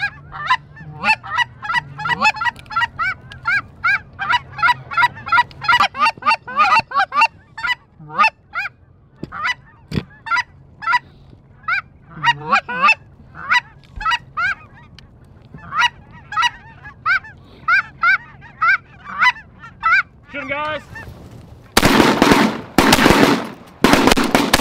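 Geese honking and clucking: many short, quick calls, thinning out after about twenty seconds. About three seconds before the end comes a volley of several loud shotgun shots in quick succession.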